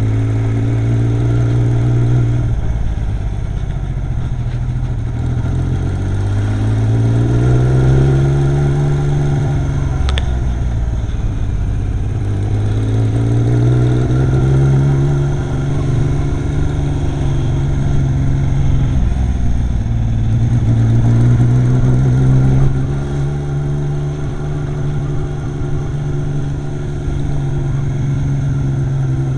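Yamaha XS850 three-cylinder motorcycle engine running, its speed rising slowly and dropping back several times, with one brief click about ten seconds in. The owner suspects an intermittent misfire: it idles fine but sometimes misfires while riding.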